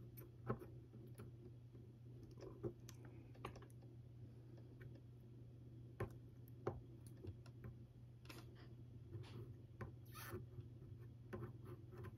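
Faint, irregular light clicks and taps of small hand tools during soldering work, over a steady low hum.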